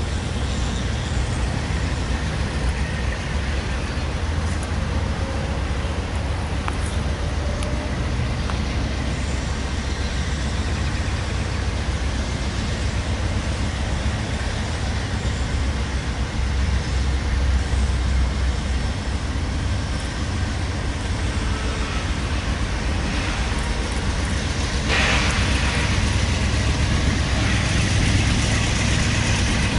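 Diesel rumble of two GE C44-9W freight locomotives running under power as they approach, a steady deep drone that grows louder about 25 seconds in as the units draw near and put out dark exhaust.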